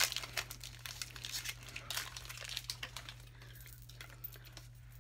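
Foil Pokémon trading-card booster pack wrapper crinkling and rustling as it is torn open and handled; the crackling is densest in the first three seconds and then dies down.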